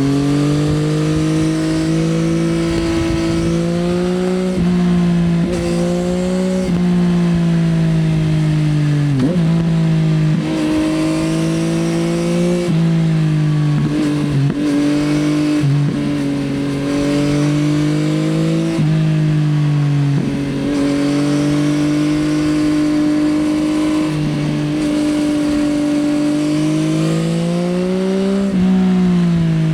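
Yamaha XSR900's three-cylinder engine through an Akrapovič Racing Line exhaust, ridden hard: revs climb and drop abruptly at each gear change, a dozen or so times, with some stretches of easing off.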